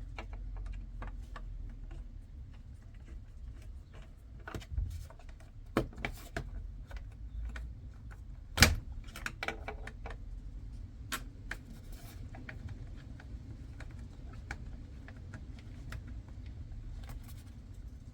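Scattered small clicks, taps and light rattles from hands working on a steering wheel's fittings and screws, with one sharp knock about eight and a half seconds in.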